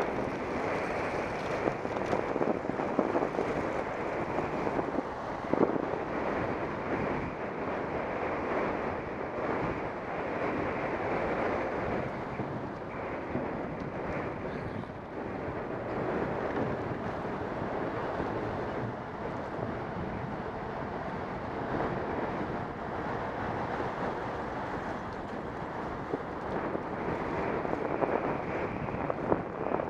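Steady wind rushing over the microphone of a camera on a moving bicycle.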